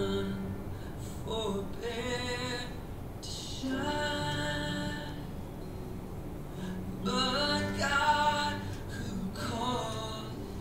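Music: a solo voice singing held, wavering notes in phrases over a steady accompaniment.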